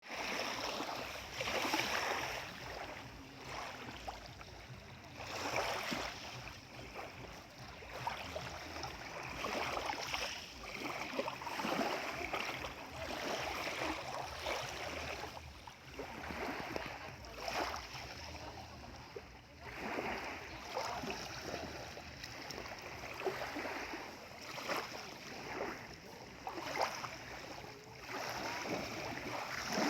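Small lake waves lapping and splashing in an uneven rhythm, a wash every second or two.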